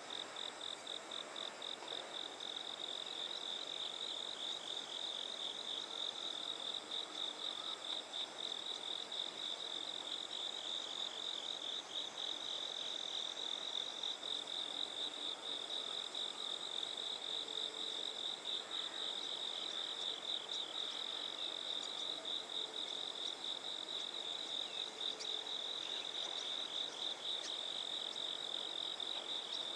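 Crickets chirping in a steady, rapidly pulsing high trill that goes on without a break.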